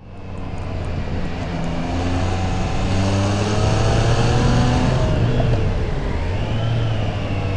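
Triumph Tiger 660 Sport's three-cylinder engine through its stock exhaust, pulling hard with its pitch climbing and dropping back several times, over wind and road noise.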